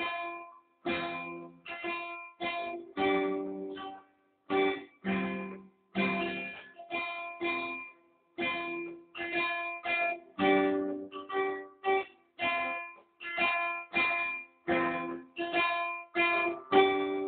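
Acoustic guitar strummed in a steady rhythm, about two chords a second, each chord stopped short before the next.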